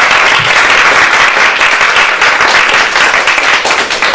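Audience applauding: many people clapping together in a dense, steady patter.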